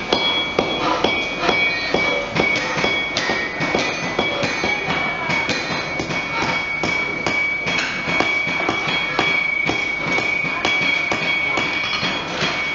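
Several hammers striking hot steel on anvils at once in a forge: irregular, overlapping blows with the anvils ringing steadily between them.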